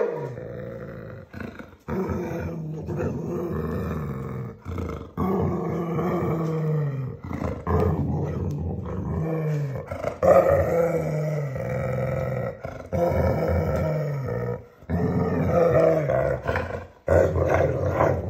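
Hungarian vizsla growling in long, drawn-out pitched moans, one after another with short breaks, many falling in pitch: excited play-growling over a new toy. A short sharp high sound at the very start.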